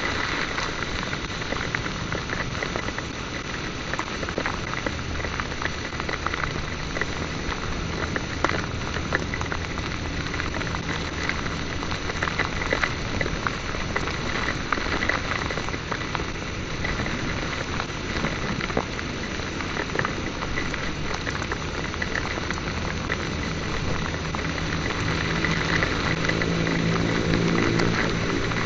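Heavy rain, many drops striking close to the microphone as a dense stream of ticks over a steady hiss. A motorcycle engine runs low underneath, and its note comes up and grows louder near the end.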